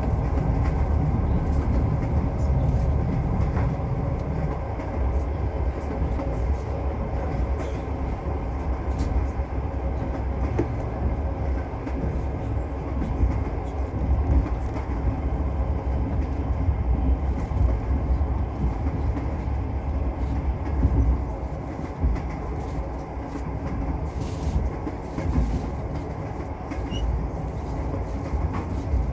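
Passenger train running along the track, heard from inside the carriage: a steady low rumble with the knocking of the wheels on the rails.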